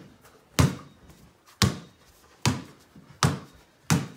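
Small basketball dribbled on a hardwood floor: five separate bounces, coming a little faster toward the end.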